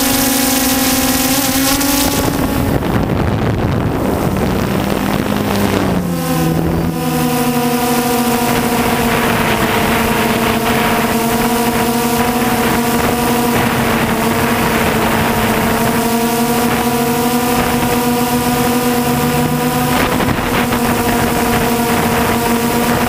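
DJI Phantom 2 quadcopter's electric motors and propellers whining as a steady pitched hum, with wind rushing on the microphone. About two seconds in, the tone breaks up and its pitch drops. By about seven seconds in it settles back into a steady hum, a little lower than before.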